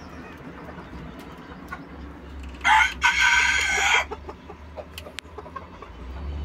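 Young Ko Shamo cockerel crowing once about two and a half seconds in: a short, rough crow of just over a second, broken briefly near its start.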